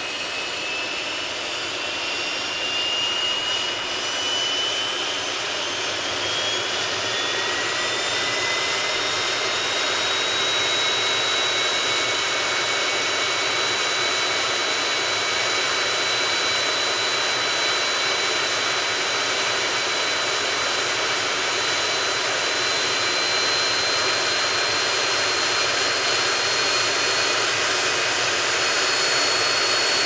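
A Cessna Citation business jet's turbofan engine, heard from outside just after starting. Its whine climbs in pitch over the first ten seconds or so as it spools up, then holds at a steady idle over a constant hiss of air.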